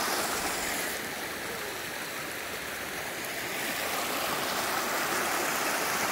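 Shallow river water rushing over a rocky riffle: a steady wash of running water that eases slightly for a couple of seconds in the middle.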